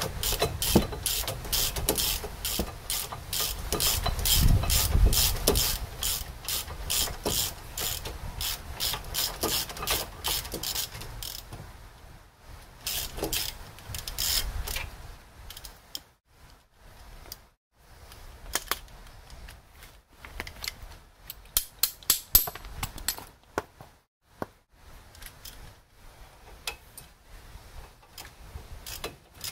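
Hand ratchet wrench clicking in steady runs, about three clicks a second, while the brake caliper bracket bolts are turned out. A little under halfway through the clicking thins to scattered, quieter clicks and knocks, with a short flurry a little past two-thirds of the way through.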